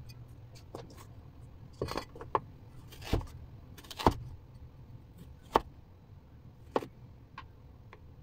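Cleaver chopping carrots on a bamboo cutting board: irregular sharp knocks of the blade striking the board, about one a second, the loudest about four seconds in.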